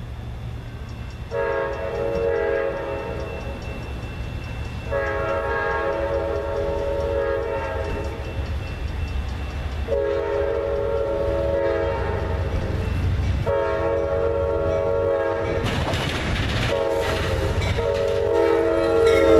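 Amtrak GE P42DC diesel locomotive's multi-note chime horn sounding a series of long blasts, then a short one and a long one, as the train approaches, over the low rumble of its engine. In the last few seconds the rush and wheel noise of the passing train grows louder.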